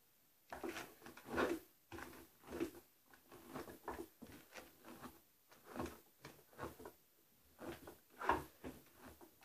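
Hairbrush strokes through a styling doll head's long synthetic hair, working out tangles: a series of short brushing sounds about once a second, a few of them louder than the rest.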